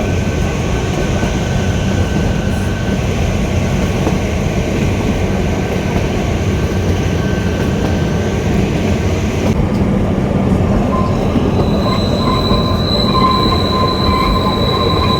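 Kalka–Shimla narrow-gauge toy train running, with a steady rumble and rattle of the coach on the rails. From about two-thirds of the way in, a thin high squeal of the wheels joins it and holds to the end.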